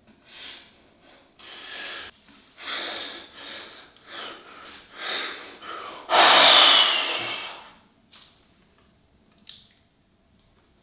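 A man breathing hard while straining to hold flexed bodybuilding poses: a run of short breaths, then one long, forceful exhale about six seconds in.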